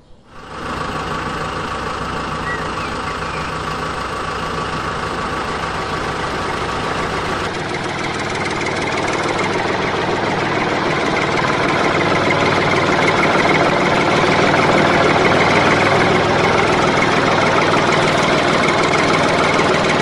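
Small electric motor of a homemade toy tractor with a circular-saw attachment, switching on suddenly about half a second in and running steadily with a buzzing mechanical noise. It grows slowly louder and changes tone a few seconds in.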